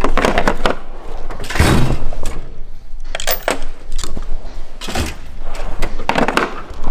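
A series of loud clunks and knocks, about six of them at uneven intervals, from heavy engine parts being handled and set down during an engine teardown.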